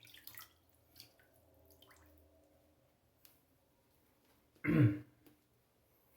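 Water dripping into a shaving bowl of lather, a few small drips and ticks in the first two seconds. About three quarters in comes one brief, louder vocal sound from the shaver.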